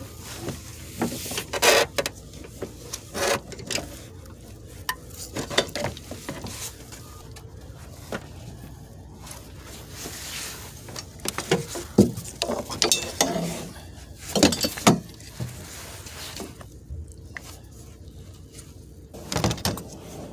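Metal clanking, rattling and scraping as a 2006 Chevy Cobalt's wiper motor and linkage assembly is worked loose and pulled out of the cowl, in several irregular clusters with quieter gaps between.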